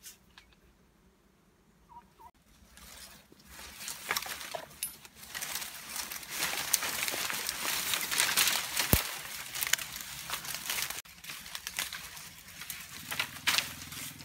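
Leaves and branches rustling, with many small twig snaps and crackles, as a man climbs up through bamboo and tree foliage. The rustling grows loud a few seconds in and eases off near the end.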